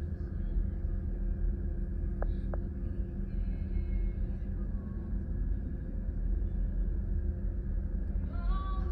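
Steady low rumble and hum of the Pont Aven ferry's engines and machinery heard from on board, with two faint clicks a little after two seconds in.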